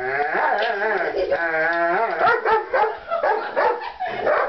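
A dog whining and howling in long wavering cries, then quicker short yips and barks in the second half.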